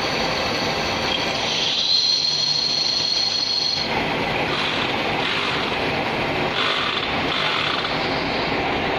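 Metal lathe turning a steel bar, the cutting tool peeling off curling chips: a steady mechanical running noise, with a high whine that rises in pitch about a second and a half in and cuts off suddenly around four seconds.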